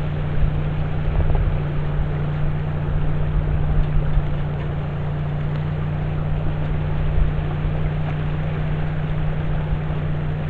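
A steady low motor hum over an even rushing noise.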